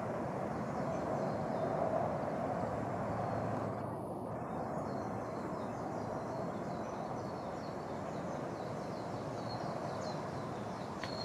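Steady outdoor ambient noise, an even low rush with no distinct source, with faint high bird chirps in the second half.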